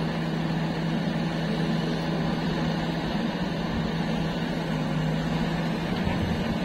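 Diesel engines running steadily, a JCB 3DX backhoe loader working its digging arm with tractors idling alongside; an even, continuous low drone.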